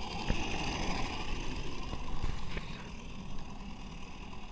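Garden-scale model train running along track, a steady mechanical running noise with a few sharp clicks.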